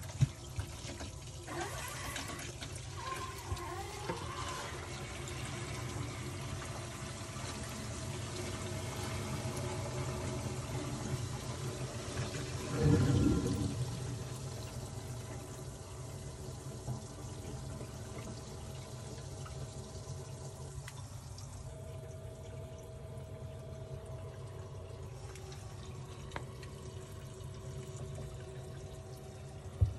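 Water running and splashing in a saltwater aquarium's filter area, steady, with a steady hum underneath and a brief louder surge about thirteen seconds in.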